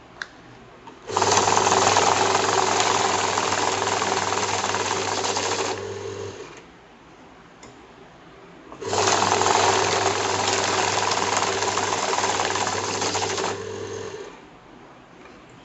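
Banknote counting machine running twice, each run a dense, fast rattling whir with a steady motor hum lasting about four and a half seconds and stopping suddenly, the motor hum trailing on for about half a second after each stop.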